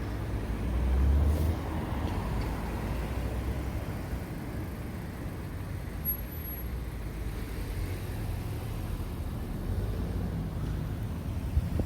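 Road traffic at a junction: a vehicle passing about a second in, then a steady low rumble of traffic.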